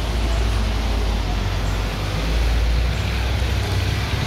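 Street traffic passing close on a wet road: a steady low rumble of vehicle engines with an even hiss of tyres over it.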